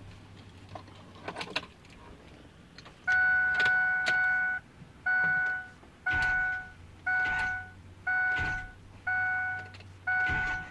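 Ford F-250 dashboard warning chime, a two-tone beep repeating about once a second from about three seconds in. Under it are a few faint low thumps as the starter is bumped briefly to turn the engine over without letting the diesel start.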